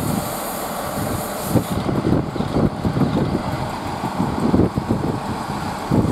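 Great Western Railway Class 165 diesel multiple unit moving off from the platform close by, its underfloor diesel engines running with wheel and rail noise, overlaid by irregular low thumps.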